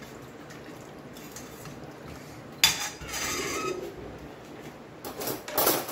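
Steel ladle stirring soup in a stainless steel pot, quiet at first, then a sharp clank of metal on metal about two and a half seconds in with about a second of scraping against the pot. A few more light knocks follow near the end.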